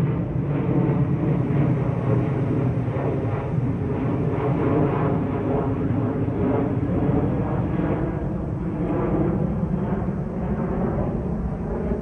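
Steady low rumble of engines, loud and continuous, easing off slightly near the end.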